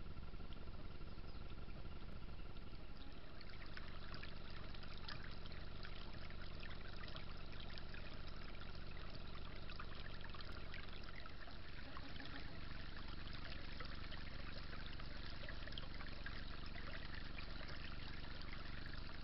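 Small creek trickling and babbling over its bed, a steady flow of water with many fine splashes that grows busier a few seconds in.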